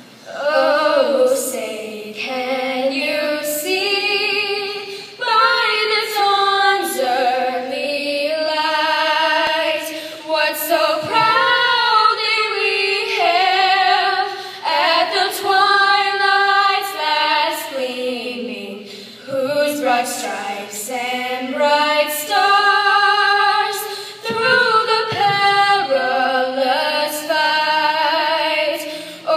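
Two young girls singing the national anthem together, unaccompanied, in long held phrases with short breaks between them.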